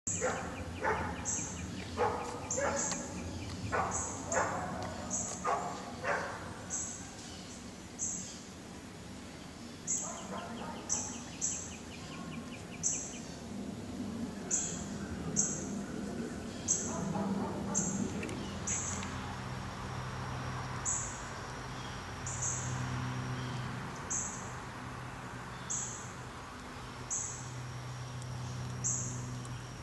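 Outdoor backyard ambience: birds calling, with a short high chirp repeating about once a second and a busier patch of calls in the first few seconds. A low steady hum sits underneath and grows stronger about halfway through.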